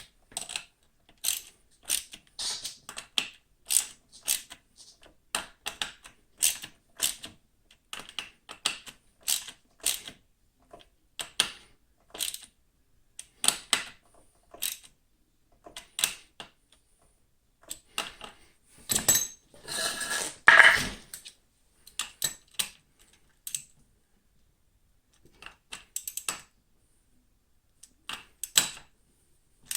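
A hand tool tightening the hub screws on a wheelchair's dual rear wheel: a run of short, irregular metal clicks and ticks. A longer, louder clattering scrape comes about two-thirds of the way through.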